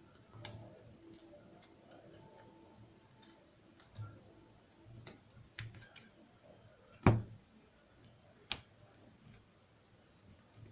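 Scattered small clicks and taps of tools and parts handled during a smartphone battery repair, with one sharp knock about seven seconds in and a lighter click a second and a half later.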